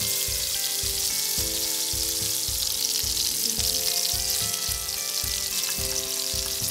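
Tilapia fillet pieces shallow-frying in hot oil in a pan, a steady crackling sizzle. Background music with a steady beat plays underneath.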